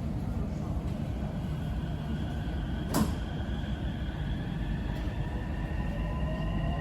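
Electric metro train heard from inside the car while running and gathering speed: a steady low rumble with a faint motor whine that slowly rises in pitch. A single sharp click about three seconds in.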